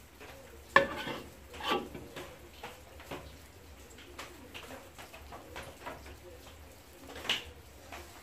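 Metal spatula scraping and clinking against a wok while stir-fried food is scooped out onto a plate, with a few sharp clanks, the loudest about a second in, another near two seconds and one near the end.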